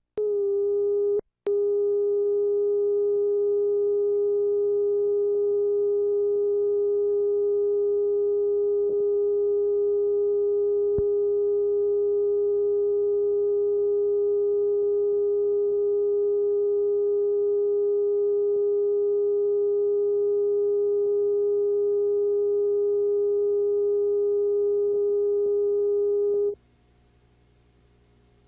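Bars-and-tone reference test tone from a TV videotape leader: one steady mid-pitched tone that drops out for a split second just over a second in. It cuts off abruptly about two seconds before the end, leaving only faint tape hiss.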